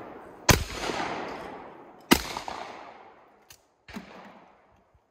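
Shotgun shots at clay targets: two loud shots about a second and a half apart, each echoing off the treeline and fading slowly, then a fainter bang near the end.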